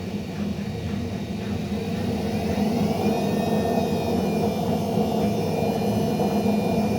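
Ariston washing machine on its spin cycle, drum humming loudly. About two seconds in, a whine starts rising in pitch and the sound gets louder as the drum speeds up.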